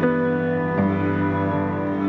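Slow instrumental music of held notes that change together about every three-quarters of a second.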